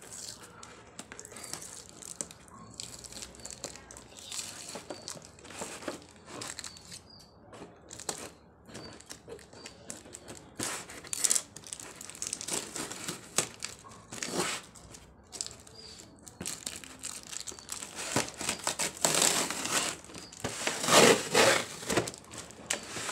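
A cardboard parcel wrapped in plastic being handled and torn open: irregular crinkling, scraping and tearing of cardboard and wrapping, loudest near the end.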